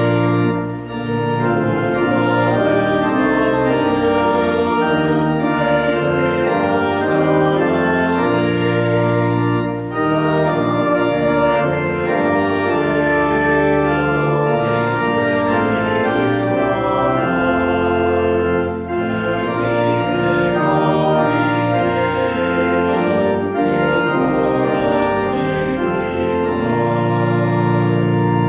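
Church organ playing a hymn in sustained chords, pausing briefly between phrases about every nine seconds.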